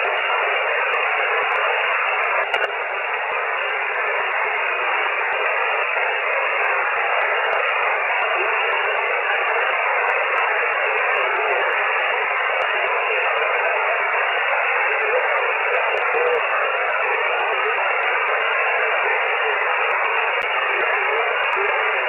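Shortwave amateur radio receiver on single-sideband giving out steady band hiss through its narrow voice filter, with no station readable.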